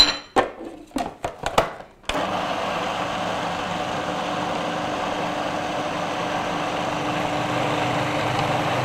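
Plastic food processor lid clattering and clicking into place, then about two seconds in the motor starts and runs steadily, blending a chickpea and potato purée.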